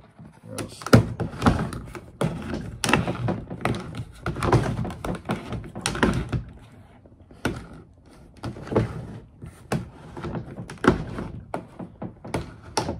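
The steering handle of a Lost Creek Angler 10 pedal-drive kayak being worked back and forth, making a run of irregular plastic clunks and knocks, about one or two a second. The steering has just been refitted with new, thinner bicycle brake cables and moves much more freely.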